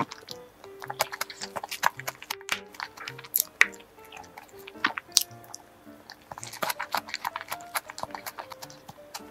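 Soft background music with close-up mouth sounds of chewing a cream-and-fruit sponge cake, full of short wet clicks and smacks, along with light clicks of a spoon in a plastic cake cup.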